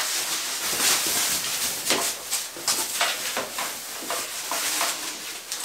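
Thin plastic sheeting rustling and crackling as it is unfolded and handled, in many short irregular crinkles.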